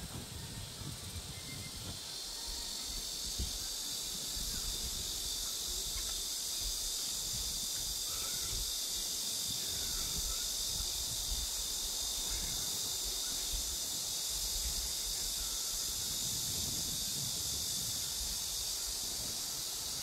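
Insects, most likely cicadas, calling in a steady high-pitched chorus that swells about two seconds in and then holds level, with a few faint bird chirps.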